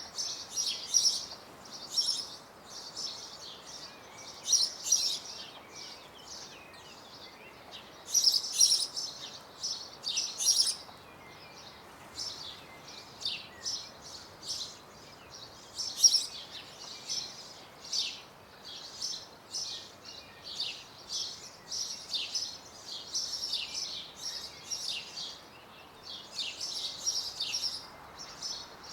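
Songbirds twittering in spring: quick high chirps come in clusters, some louder bursts every few seconds, over a faint steady background hiss.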